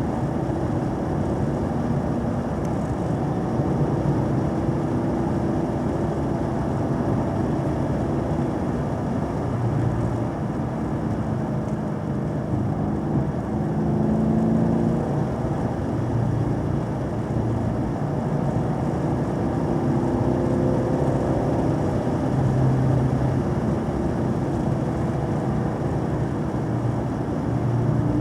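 Car engine and road noise on a winding drive, the engine note rising and falling as the revs change.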